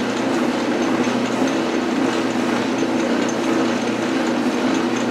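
Small metal lathe running steadily: an even motor-and-spindle hum with a faint, regular high ticking.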